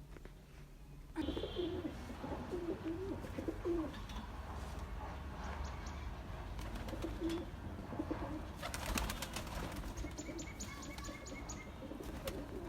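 Pigeons cooing over and over, starting about a second in, with a flurry of wing flapping about nine seconds in.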